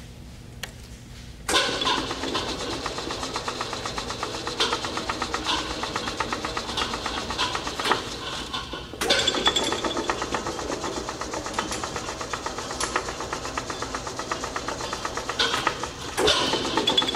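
Mark 1848 hydraulic surface grinder started from its push-button panel: over a low hum, a dense, fast-pulsing machine rattle starts suddenly about a second and a half in and keeps running. It gets louder again about halfway through and near the end.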